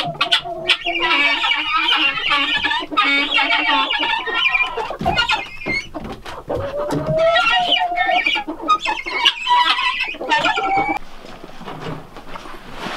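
A coop full of chickens and guinea fowl clucking and calling over one another, a dense overlapping chorus that stops about two seconds before the end.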